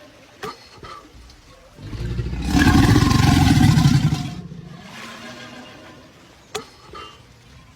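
Crocodile bellowing: one deep, rough, rumbling call that swells about two seconds in, holds for about two seconds and fades out. A sharp click comes shortly before it and another after it.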